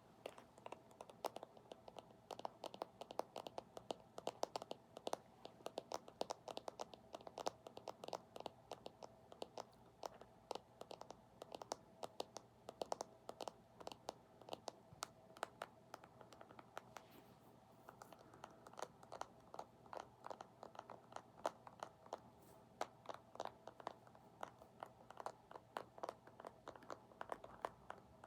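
ASMR tapping: fingertips and nails tapping and scratching quickly on an object, many light clicks a second, with a brief lull about halfway through.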